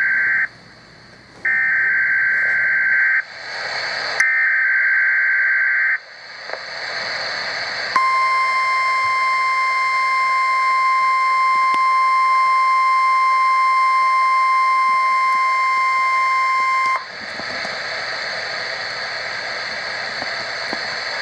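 NOAA Weather Radio weekly test through a radio receiver: three harsh two-pitch SAME digital header bursts, the first already under way, each about a second and a half long. After a short stretch of static comes the steady single-pitch 1050 Hz warning alarm tone for about nine seconds, then it cuts off to radio static hiss.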